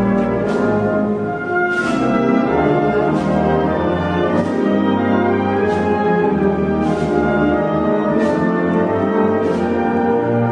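Brass band playing a slow processional march: sustained brass chords over a percussion stroke about every second and a half.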